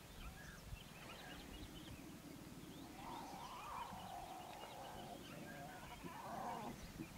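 Lion cub giving a wavering, whining growl that begins about three seconds in and runs for several seconds, the sound of cubs squabbling over the lioness's milk. Faint bird chirps are heard throughout.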